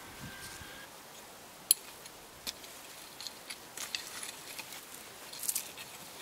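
Faint, scattered clicks and scrapes of a hand working dry, stony garden soil, with a small cluster of clicks near the end.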